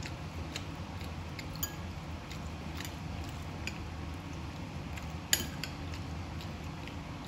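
Metal utensil clinking and scraping against a bowl as food is scooped: scattered light clicks, with one louder clink about five seconds in, over a steady low room hum.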